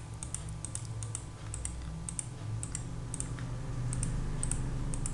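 Computer mouse button clicking, light sharp clicks every half second or so, often in quick press-and-release pairs, as line points are picked one after another. A low steady hum runs underneath.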